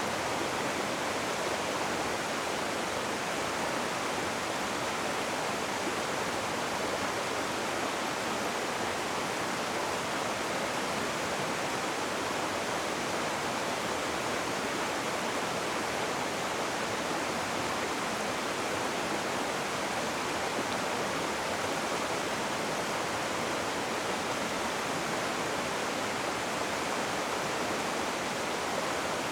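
Rushing river water: a steady, even rush with no separate splashes or changes in level.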